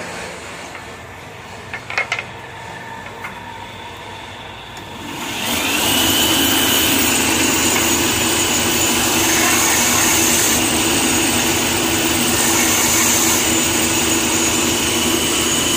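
A few short knocks, then about five seconds in a workshop machine's electric motor starts, its whine rising briefly and settling into a steady high tone as it runs on at speed.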